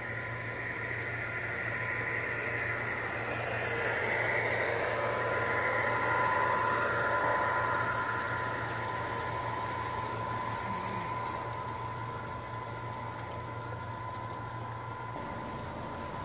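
G-scale model diesel locomotive and freight cars running along a garden railway track: a steady electric motor and gear whine with the rolling of wheels on rail. It grows louder as the train passes closest, about five to eight seconds in, then fades.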